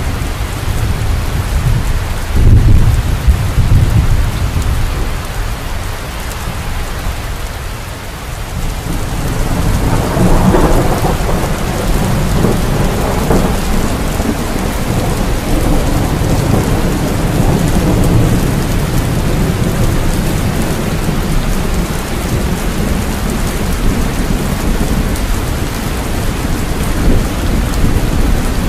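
Steady heavy rain with thunder: a short low rumble a couple of seconds in, then a longer rolling peal starting about ten seconds in that slowly fades back under the rain.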